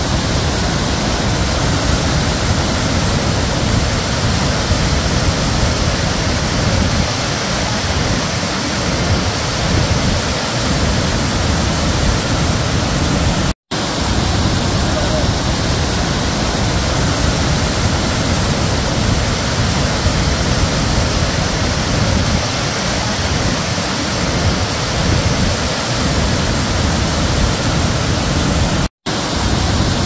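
Large glacier-meltwater waterfall rushing down rocky tiers, heard close to its base as a loud, steady wash of falling water. The sound cuts out for an instant twice, about halfway through and near the end.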